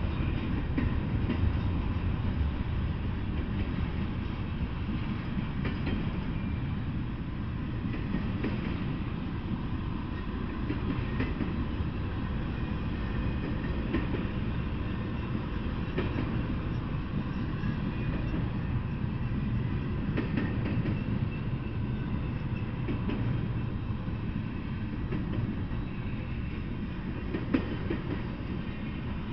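Intermodal freight train of truck trailers on flatcars rolling past at steady speed: a continuous rumble of wheels on rail, with scattered clicks from the wheels over the rail joints.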